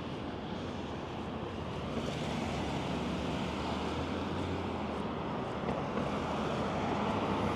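Steady road traffic on a busy street, cars and engines passing, growing gradually louder.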